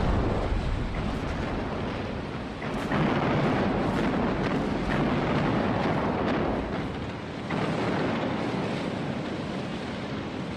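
Naval gunfire and shell explosions: a continuous low rumble broken by a string of heavy booms.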